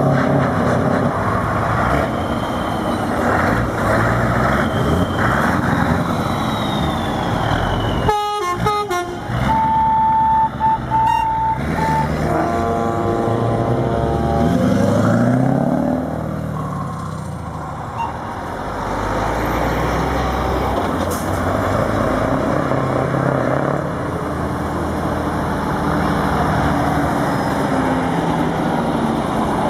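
Heavy trucks' diesel engines running and revving as they drive past. About ten seconds in, a truck horn sounds steadily, followed for a few seconds by a chord of several air-horn tones.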